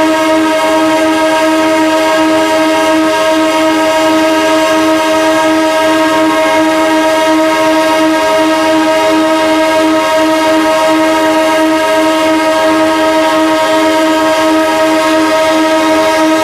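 Locomotive air horn held in one long unbroken blast: a steady multi-note chord that keeps the same pitch and loudness, without a break.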